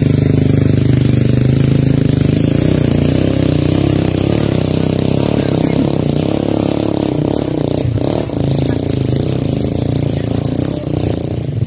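Motorcycle engine running steadily at a fairly constant pitch under load, carrying panniers of oil palm fruit bunches up a long slope.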